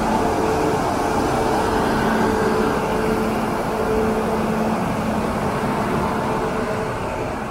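Indian Railways electric locomotive rolling slowly past along a station platform: a steady rumble of wheels and machinery with a hum from its motors and blowers, which drops away near the end as the coaches follow.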